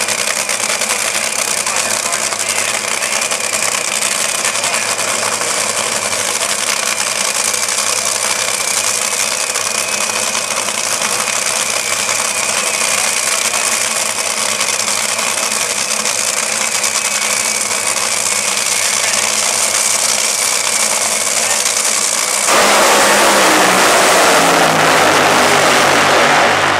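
Two Top Fuel dragsters' supercharged nitromethane V8 engines idling loudly and steadily at the starting line. About 22 seconds in, both launch at full throttle in a sudden, much louder blast, and its pitch falls as the cars run away down the strip.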